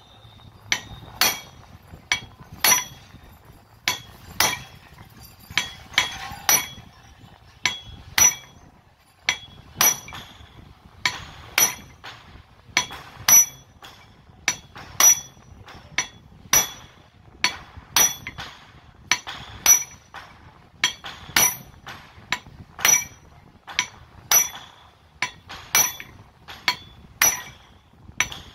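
Hand hammer repeatedly striking the steel front barrel assembly of a 5 kg demolition hammer to knock out a seized part. The metal-on-metal blows are often in pairs, about one pair every second and a half, each with a short ringing clink.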